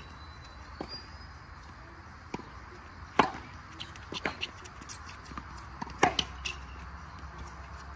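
Tennis on a hard court: a few light ball bounces, then a serve struck with a sharp racket hit about three seconds in, followed by the ball's bounces and another loud racket hit about six seconds in as the rally goes on.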